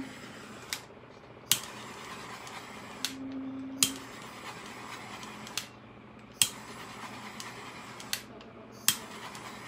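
Handheld craft torch clicking and hissing in short bursts, several times over, as it is passed quickly over wet epoxy to pop the surface micro bubbles. The sharp clicks are the loudest sounds.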